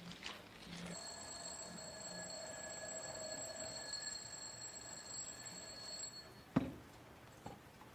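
A steady ringing alarm-like tone of several pitches at once, lasting about five seconds, then a sharp click.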